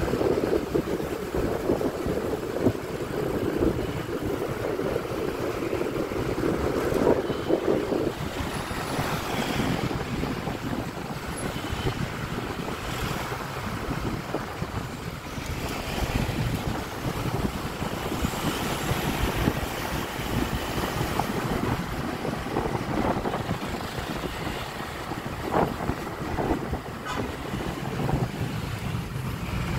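Riding a Honda Click 125i scooter on city roads: wind rushing over the microphone, with the scooter's engine and surrounding traffic beneath it.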